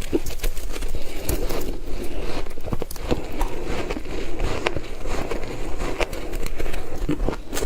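Ice being bitten and chewed close to the microphone: a run of irregular, sharp crunches and cracks.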